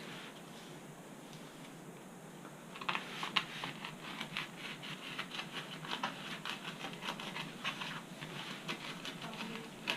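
Fine sandpaper rubbed on foam in quick, irregular scratchy strokes, starting about three seconds in, to clean the fuzzy 'fur' off the foam around a hinge.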